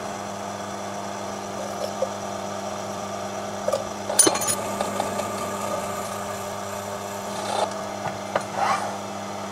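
Proxxon PD 250/e mini lathe running with a steady hum while a reamer is fed into a drilled hole in a spinning mild-steel part. A sharp scrape about four seconds in and a few lighter scrapes near the end come from the reamer cutting.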